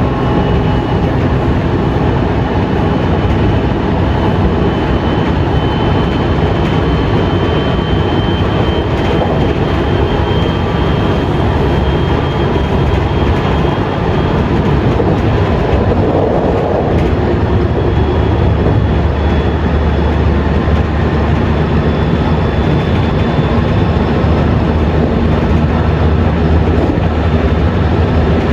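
Running noise of a JR West 207 series electric train, heard in motor car MoHa 207-504: a steady rumble of wheels on rail, with a faint high whine from its Mitsubishi power-transistor VVVF inverter and traction motors.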